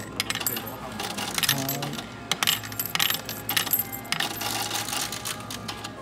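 Coins dropped in quick succession into the coin slot of a self-checkout cash machine: a rapid run of metallic clinks and rattles.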